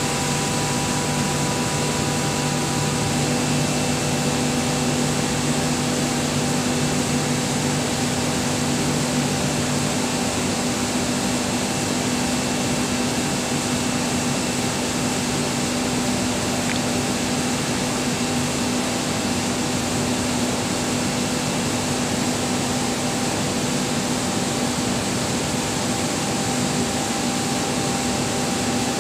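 BK37-8ZG screw air compressor running: a steady whir with a constant hum. One lower hum drops out about ten seconds in.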